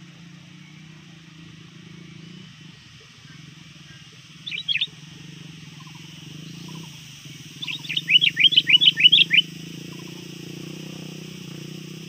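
Sooty-headed bulbul calling to challenge rival birds: a short burst of three quick notes about four and a half seconds in, then a rapid run of about a dozen sharp notes near eight seconds. A steady low hum lies underneath.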